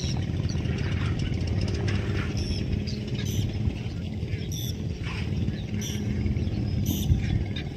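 Steady low drone of a motorboat engine running, with short high chirps here and there over it.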